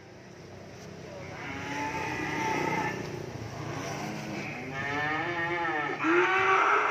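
Cattle mooing: three long, drawn-out calls, the last starting about six seconds in and the loudest.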